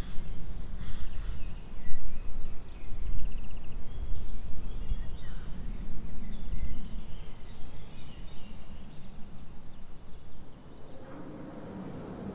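Outdoor ambience: wind gusting on the microphone as a loud, uneven low rumble, with birds chirping and trilling in the background. Near the end this gives way to a quieter, steady hum.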